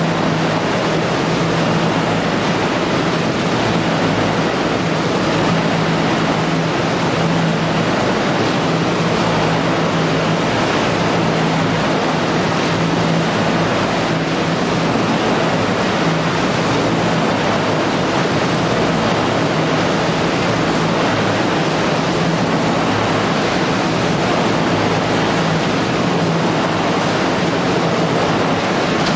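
Steady, loud mechanical din of a running Tyrannosaurus waste-shredding line, with shredders, conveyors and air ducting all running together. A steady low hum runs under an even wash of noise.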